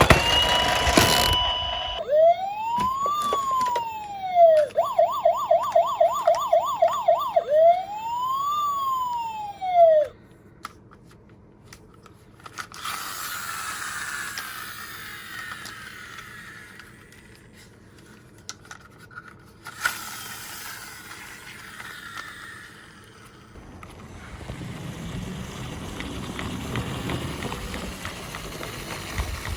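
Toy police car's electronic siren: one rising-and-falling wail, a fast yelping warble, then a second wail, cutting off about ten seconds in. A quieter steady rushing noise of minicars rolling down the toy slope follows.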